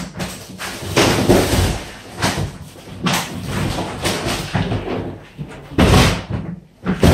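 A plastic-wrapped, rolled-up memory-foam mattress being pulled out of its cardboard box: scraping and rustling, with several thuds, the loudest about six seconds in.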